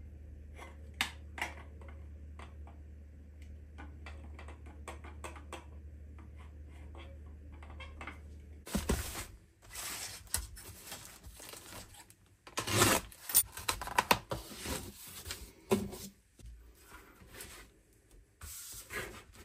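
Light metallic clicks and taps over a low hum as a spirit level is set against steel head studs in an engine block. Then, about nine seconds in, crinkling and tearing plastic as a head gasket's mailer bag and film wrap are opened, loudest about halfway through.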